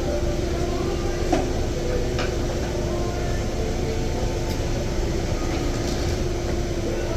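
Steady mechanical running noise with a constant hum and a few faint clicks.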